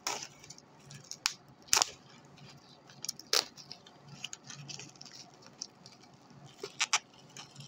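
Packaging of a model train car being worked open by hand: irregular short, sharp crackles and clicks.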